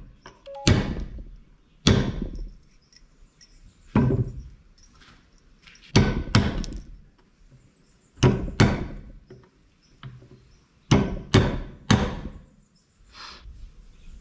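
Claw hammer driving 4-inch nails into a wooden board: about a dozen sharp strikes at uneven intervals, often in quick pairs, each with a brief metallic ring, ending with a lighter tap near the end.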